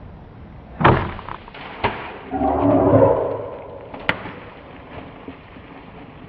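A sharp knock from a hunting bow's shot at a wild boar, a second knock about a second later, then a louder scuffling rush lasting about a second as the hit boar bolts through the undergrowth.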